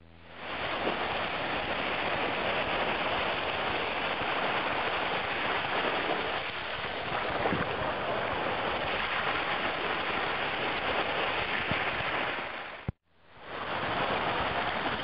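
Small waves washing in over a shallow sandy shore: a steady hiss of surf. It cuts out for a moment about two seconds before the end and fades back in.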